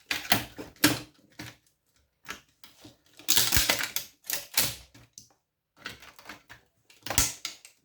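Small metal scrap parts and tools clicking and clattering on a work surface as an electronics power board is stripped: a few separate sharp clicks, a busier run of clatter about three to five seconds in, and a sharp knock near the end.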